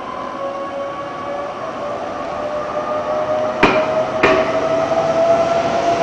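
Meitetsu 3000-series-family electric train running past the platform, its motor whine rising slowly and steadily in pitch. Two sharp wheel clacks over a rail joint come about three and a half and four seconds in.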